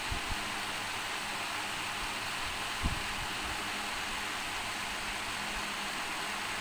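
Steady hiss of background noise, like a fan running, with one short low thump a little under three seconds in.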